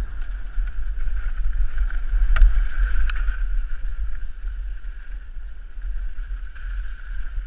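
Wind rumble and riding noise on a helmet-mounted GoPro Hero3 Black as a mountain bike descends a dirt trail, with a steady hiss and a couple of sharp knocks about two and a half and three seconds in.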